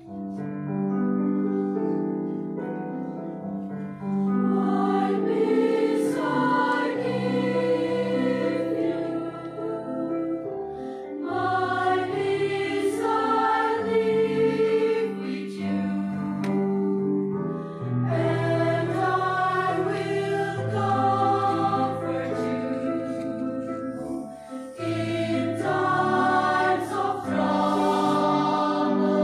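Mixed choir of men's and women's voices singing in harmony, in sustained phrases with brief pauses between them.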